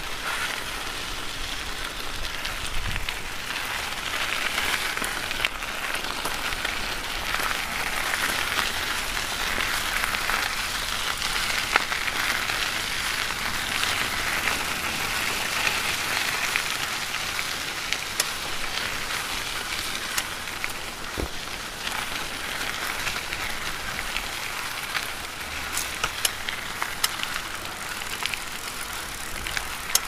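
Bicycle tyres rolling over gravel: a steady crunching hiss with many small scattered clicks of loose stones.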